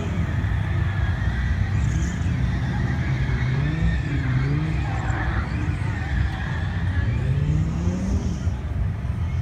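Dodge thrill-ride cars' engines running hard, the pitch rising in two long pulls about three and seven seconds in, over a steady rumble.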